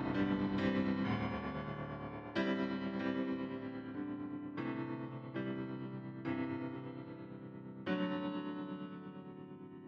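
Slow background piano music: single chords struck every second or two and left to ring out and fade.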